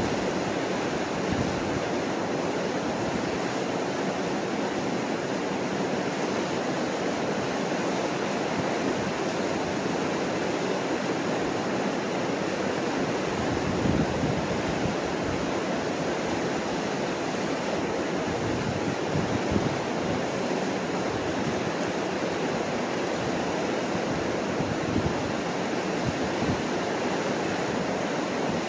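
Mississippi River water rushing steadily over the rocky ledge of the Chain of Rocks rapids, an even churn of whitewater.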